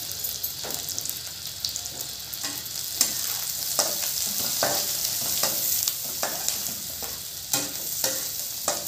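Sliced onions and green chillies sizzling in hot oil in a kadai, while a metal spatula stirs them with short scraping strokes against the pan about once a second.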